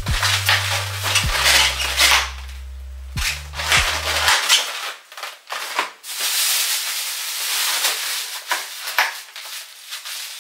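Plastic carryout bag crinkling and rustling in short bursts as styrofoam takeout containers are pulled out of it and opened. Low background music runs under it and stops about four seconds in.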